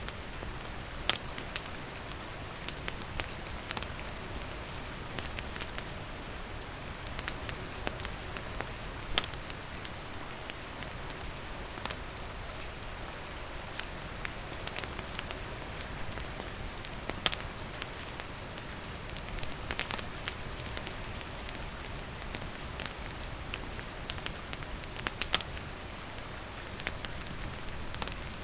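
Steady rain falling, with a wood campfire crackling through it in scattered sharp pops.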